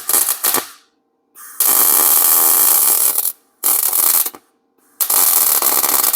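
MIG welder arc crackling and hissing in four bursts with short pauses between them, the longest about a second and a half, while a nut is welded onto a broken exhaust stud.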